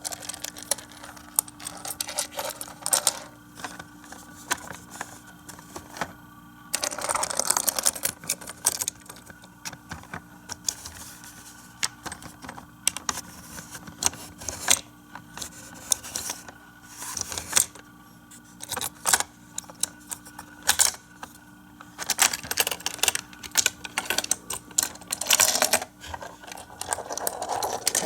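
Plastic toy playset and tiny toy cars being handled: irregular sharp clicks, clacks and short scraping rattles of small plastic parts.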